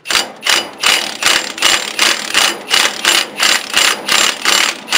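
Cordless electric impact driver hammering on a nut welded to a broken-off bolt, worked forward and reverse to back the bolt out. Its rattle pulses about three times a second.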